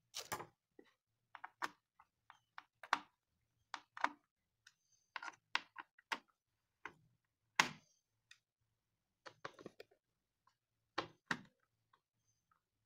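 Irregular light clicks and taps of screws and plastic parts being handled and fitted into an induction cooktop's plastic housing during reassembly, with a few sharper knocks among them.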